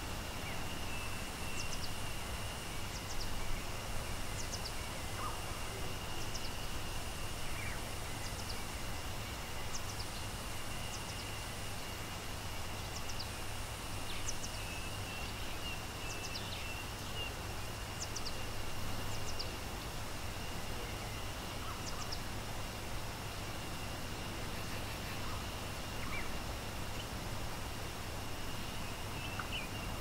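Steady rushing of a waterfall, with small birds calling in short, high, falling chirps every second or two over a constant high-pitched hum.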